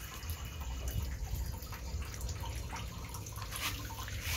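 Water dripping and trickling in small irregular drops, over a low rumble.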